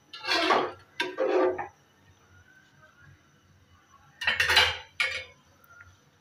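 A steel ladle scraping and knocking against the side of an aluminium pressure cooker pot while stirring the broth inside, in two pairs of short strokes: one pair at the start and another about four seconds in.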